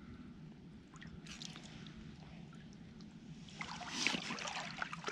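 Creek water trickling and dripping around a person wading in it, then sloshing and splashing louder about three and a half seconds in as a trapped muskrat and its trap are lowered back into the water.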